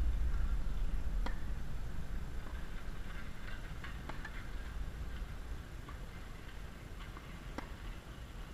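Tennis rally: a string of sharp pops of racket strings hitting the ball every second or two, some faint from the far end of the court, the loudest about a second in and again near the end, over a low rumble that fades.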